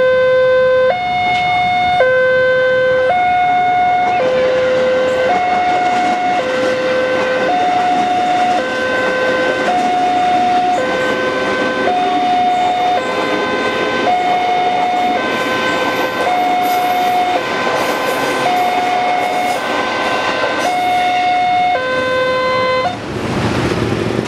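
Railway level-crossing warning alarm sounding a two-tone ding-dong, a high and a low note alternating about once a second, while an electric commuter train runs over the crossing with a rushing rail noise. The alarm cuts off about a second before the end, as the train clears and the crossing reopens.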